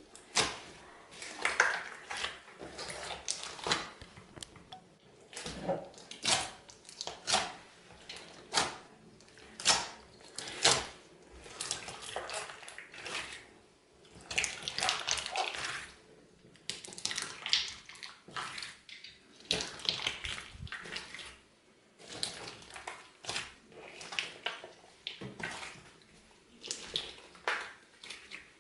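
Clear fishbowl slime, packed with beads and gems, being pressed and kneaded by hand: irregular wet crunching and crackling in quick clusters, with short pauses between presses.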